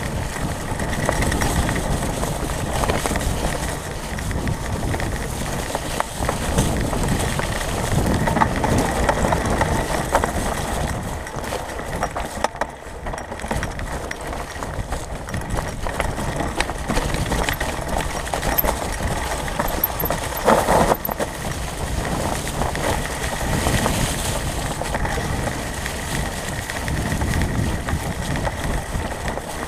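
Mountain bike rolling along a dirt trail covered in dry leaves: steady tyre rumble and leaf crunch, with frequent small clicks and rattles from the bike.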